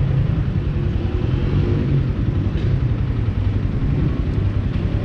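Motorcycle engine idling close by, a steady low rapid putter.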